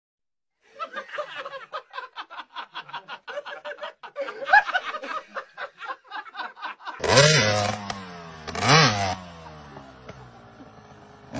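Rapid chuckling laughter for several seconds, then a dirt bike's engine revved hard twice, about a second and a half apart, each rev rising and falling in pitch before the engine drops to a lower run.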